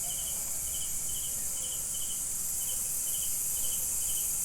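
Insects chirping in the background: short high chirps repeating two or three times a second, over a steady high hiss.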